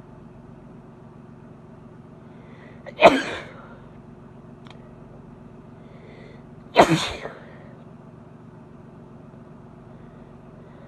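A woman sneezing twice, about four seconds apart, each sneeze preceded by a faint intake of breath: hay-fever allergy sneezes. A steady low hum runs underneath.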